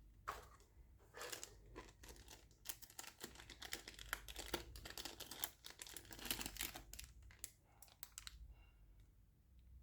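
Keyboard packaging being handled and unwrapped: a faint, dense run of crinkles and rustles lasting about eight seconds.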